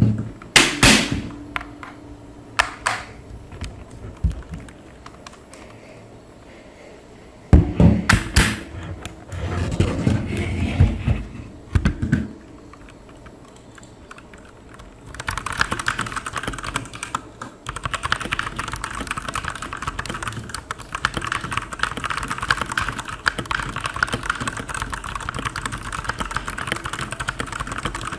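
Digital Alliance Meca 6 Plus mechanical keyboard: a few separate bursts of knocks and key clatter, then fast continuous typing from about halfway in.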